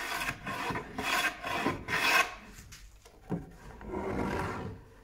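Sandpaper rubbed by hand along the sharp edges of a plywood shooting board to take them off: a run of quick back-and-forth strokes for about two seconds, then lighter rubbing with a small click.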